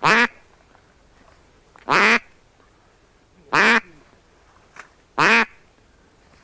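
Four loud duck quacks, short and evenly spaced about a second and a half apart.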